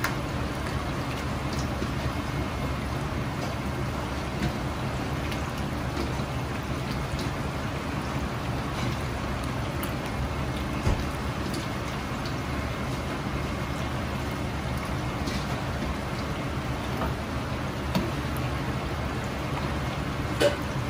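Karaage chicken pieces coated in egg and potato starch deep-frying in a wok of hot oil: a steady, busy sizzling and bubbling, with a steady low hum underneath. A couple of brief light knocks stand out.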